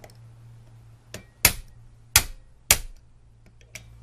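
Hammer striking the case of a combination cable lock held by its shackle: a light tap, then three hard blows about 0.6 s apart, knocking the lock body's seam further apart.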